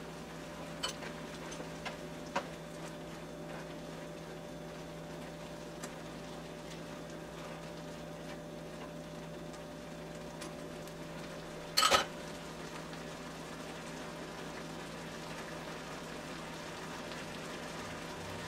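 Venison hamburger helper simmering in a skillet, a steady soft bubbling. A few light clicks come early, and about twelve seconds in a utensil knocks loudly against the pan while the dish is stirred.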